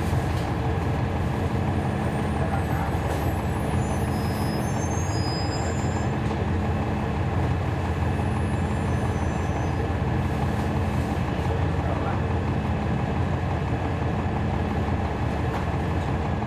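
Cabin sound of a 2011 NABI 40-SFW transit bus, its Cummins ISL9 inline-six diesel running at a steady, even pitch, heard from inside the bus. A few faint high squeaks come and go over the hum.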